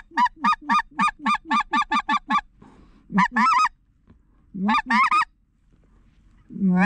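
Specklebelly (white-fronted goose) call blown by a hunter. It opens with a fast string of short yelps, about four a second, each breaking sharply from a low note to a high one. Three shorter clucking bursts follow after pauses. The calling is not the greatest, by the caller's own account.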